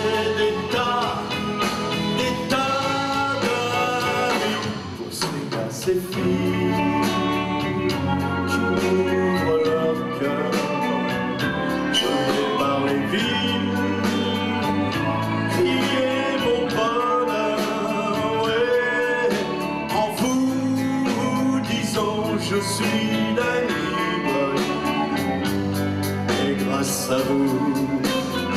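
A male singer singing with a live rock band, the music going on without a break.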